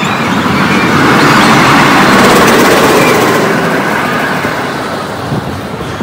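Steel roller coaster train running along its track, growing louder to a peak about two seconds in and then fading as it moves away.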